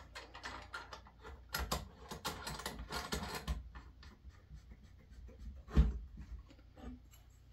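Hands handling an Askar FRA300 Pro metal refractor telescope on a wooden table while adjusting its tube-ring clamp: a run of light clicks, taps and scrapes, with one louder knock about three quarters of the way through.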